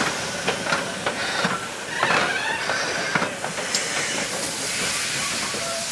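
Beyer-Garratt steam locomotive 6029 rolling past at low speed: steady hissing steam with scattered clanks and knocks from its running gear on the rails, and a few short squeaks about two seconds in.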